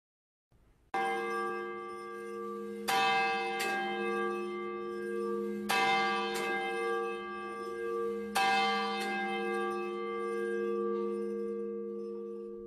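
Church bell tolled four times, two to three seconds apart, with a softer second stroke after each of the last three, its deep hum ringing on between strikes and fading near the end. It is rung as the call to worship.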